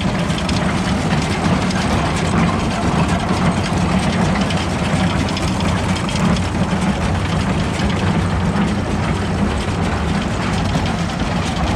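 Heavy engine running steadily, with fast mechanical clicking and clatter over it.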